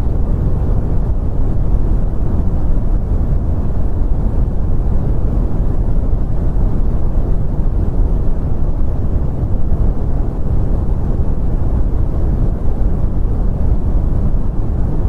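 Brown noise: a steady, even rumbling hiss, deep and heavy at the bottom and fading out toward the highs, unchanging throughout.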